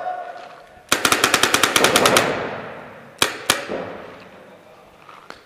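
Electronic paintball marker, a Dangerous Power FX, firing a rapid string of about fourteen shots at roughly ten a second, followed a second later by two more single shots. Each pop echoes around a large hall.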